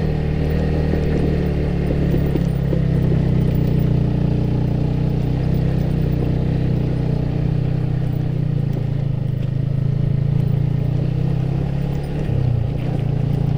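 Motorcycle engine running steadily under load as the bike rides uphill. Near the end the engine note dips briefly and then picks up again.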